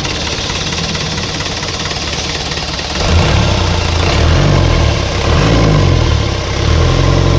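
Isuzu 4BC2 four-cylinder diesel engine running steadily, then revved up and down a few times from about three seconds in. It is the engine just repaired for a knock, which the mechanic now calls quiet.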